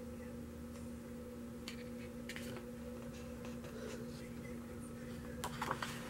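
Page of a glossy album photobook being turned by hand: a few faint paper clicks, then a short, louder rustle of the page about five and a half seconds in. A steady low hum runs underneath.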